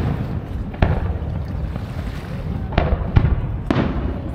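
Aerial fireworks shells bursting over a lake, heard as four sharp booms, two close together near the middle and the others about a second in and near the end, each trailing off in an echoing rumble.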